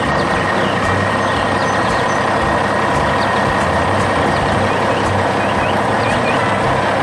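Dump truck engine running steadily, a constant heavy-vehicle drone with a low pulsing rumble and a thin steady tone above it.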